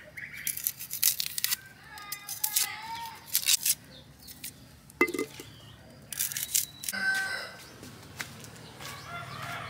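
Crisp tearing and scraping of a knife peeling the papery skin off shallots, in a run of short sharp strokes, with birds calling in the background.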